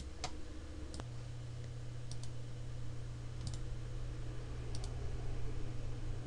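Computer mouse clicking: a couple of single clicks, then several quick pairs of clicks, over a steady low hum.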